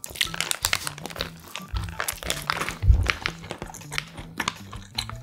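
Close-miked eating of a toasted sandwich in a paper wrapper: the paper crinkles and the crisp toast crunches with each bite and chew, in quick crackles. Two dull thumps near the middle are the loudest sounds.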